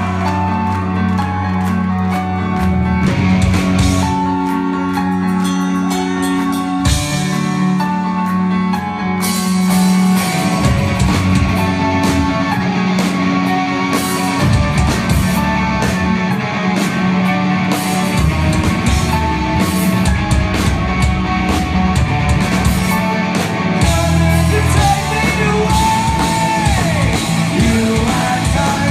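Live punk rock band playing amplified in a hall: electric guitar, bass guitar and drum kit, with singing. The cymbals and drums get busier after about nine seconds.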